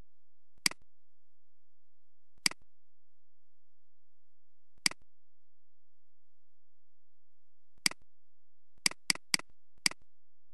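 Computer mouse clicks, eight sharp clicks in all. The first four come singly, two to three seconds apart, followed near the end by a quick run of three and then one more.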